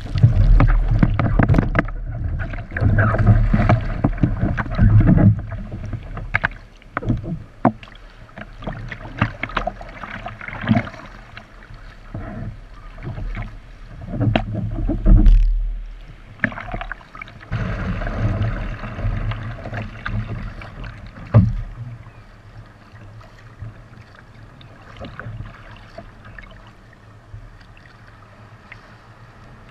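Water splashing and rushing against an Epic V7 surf ski's hull, with irregular paddle-blade splashes. The mix is loud and heavy in the first few seconds, with a second loud surge about fifteen seconds in. It settles to quieter, lighter splashing toward the end.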